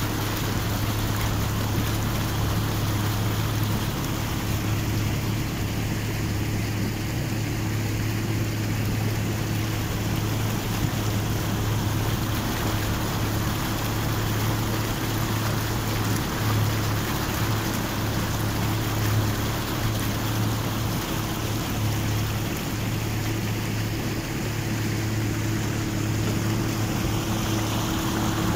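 Motorboat running at speed: a steady engine drone under the rush of spray and water along the hull.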